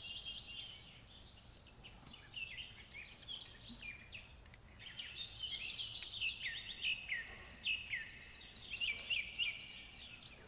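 Birds chirping and calling, short quick notes repeated in runs, with a long high trill from about six to nine seconds in.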